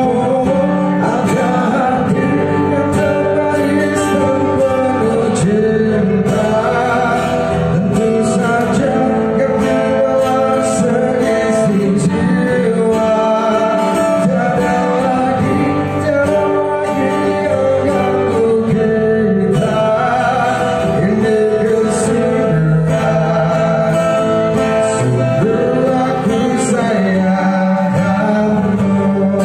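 A man singing a melody into a microphone, accompanied by strummed and picked acoustic guitar.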